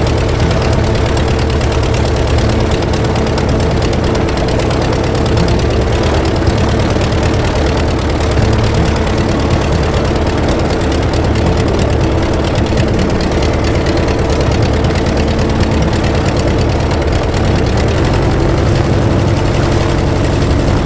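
Lancair 360's uncowled four-cylinder aircraft engine running steadily at idle with the propeller turning, on its first ground run.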